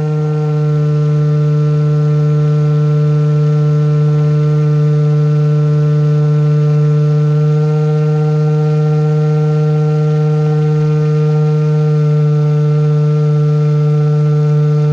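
Swamp Dawg RC airboat's motor and air propeller running at a steady throttle, a loud constant-pitched drone heard from on board the boat.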